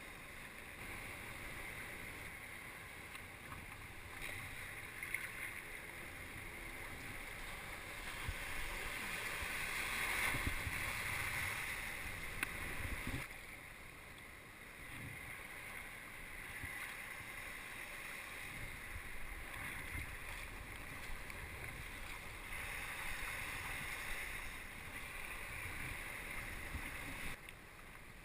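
Sea water splashing and rushing against a kayak as it is paddled, with wind buffeting the microphone. The water noise swells and eases every few seconds.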